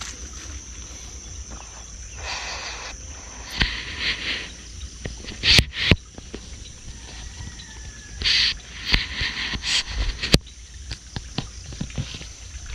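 Steady high-pitched insect drone, broken by several short bursts of hissing noise. The loudest bursts come about five and a half seconds in and again from about eight to ten seconds in.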